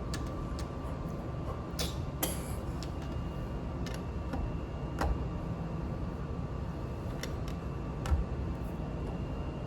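LEGO bricks clicking as they are handled and pressed onto the build: several short, sharp clicks scattered over a steady low hum, the loudest near the end.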